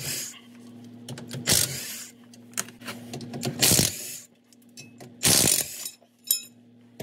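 Cordless impact wrench running in short bursts about every two seconds as it spins out the bolts holding the exhaust cross member.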